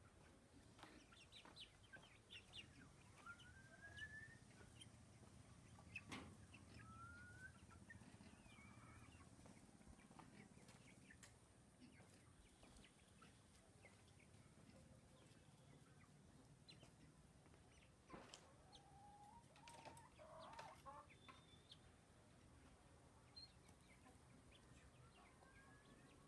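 Faint, scattered chicken clucking and bird calls, including a few short rising chirps, over a quiet outdoor background.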